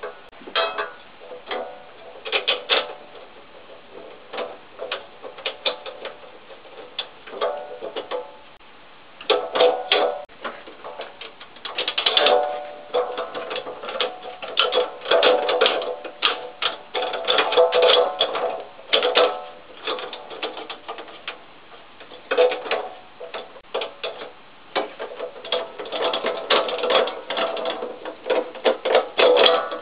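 Irregular metallic clanks and knocks with a ringing tone, from the expansion vessel and its fittings being worked loose in the boiler's steel frame.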